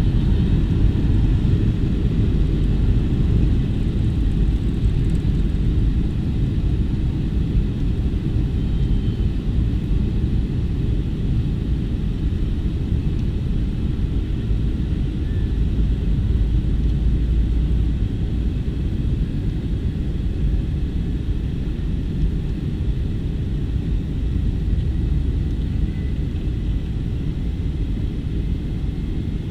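Steady loud rumble of a Boeing 757-200's engines and airflow heard from inside the cabin, easing very slightly over time.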